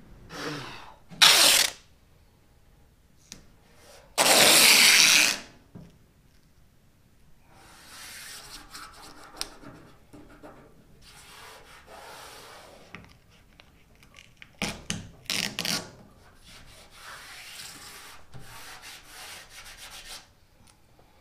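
Masking tape being unrolled in loud ripping pulls: a short pull about a second in, a longer one of about a second around four seconds in, and several more near fifteen seconds. Between the pulls, hands rub the tape down onto the painted steel tailgate.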